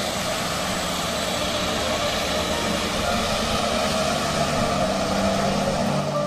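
Small airplane's engines running at high power, a loud steady rushing noise.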